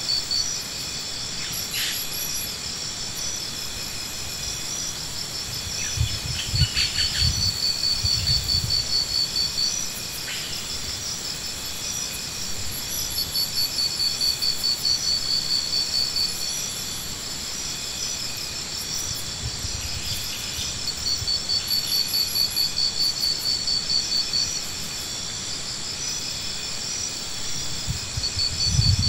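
Insects trilling steadily in high, pulsing bouts that come and go every few seconds. A few low, dull thuds or rumbles sound about a quarter of the way in and again near the end.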